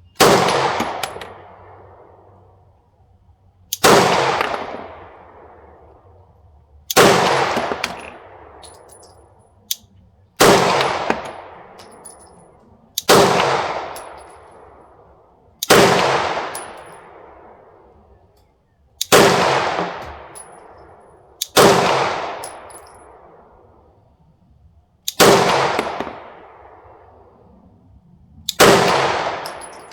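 Glock 19X 9mm pistol fired in slow, deliberate single shots: ten shots, about one every three seconds, each report trailing off in a long fading echo.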